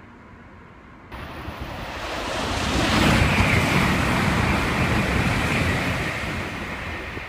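N700-series Shinkansen bullet train running through the station non-stop at close to 300 km/h: a loud rush of air and wheel noise. It starts suddenly about a second in, swells to its loudest around three seconds, holds, then fades.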